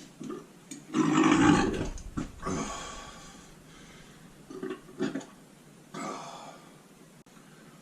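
A man's loud, drawn-out burp about a second in, lasting about a second, followed by a few shorter, fainter throat and breath sounds.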